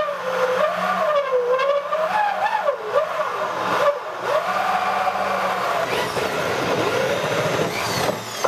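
Electric drill spinning a 3-inch hole saw in reverse against a thin plastic tank wall, the teeth rubbing instead of cutting so that friction heats the plastic for a clean edge. A loud, wavering squealing whine that rises and falls in pitch as the load on the saw changes, easing off just before the end.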